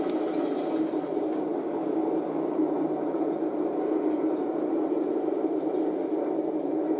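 Steady rumbling noise with no distinct events; a faint high whine stops about a second in.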